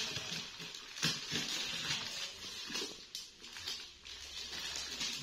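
Disposable plastic gloves crinkling and rustling as hands pull the flesh from a cut-open jackfruit, with irregular soft crackles and small clicks.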